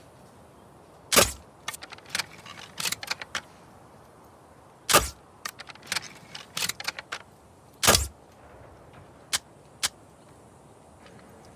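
Crossbow mechanism: three loud, sharp snaps about three seconds apart, the third loudest, with clusters of smaller clicks and metallic rattles between them.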